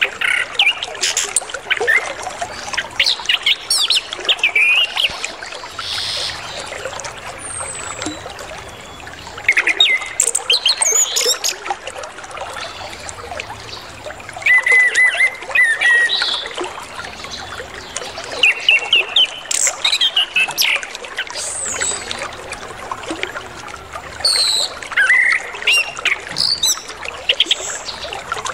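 Orange-headed thrush (anis kembang) singing a long, varied song in quick bursts of high, twisting notes, packed with mimicked phrases, over a steady trickle of running water.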